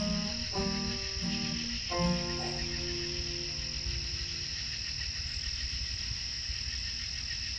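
Night insects trilling in a steady high drone, with a frog croaking a few deep, pitched notes in the first three seconds, the last one trailing off.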